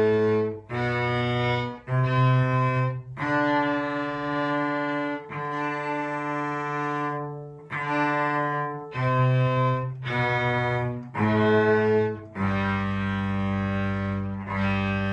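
Two bowed string instruments, a low one and a higher one, playing a slow beginner method-book exercise together: about a dozen separately bowed sustained notes with short breaks between them, several held longer.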